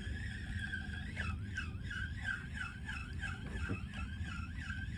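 A spinning reel being cranked to retrieve a lure: a faint, steady gear whine that wavers up and down about three times a second with each turn of the handle.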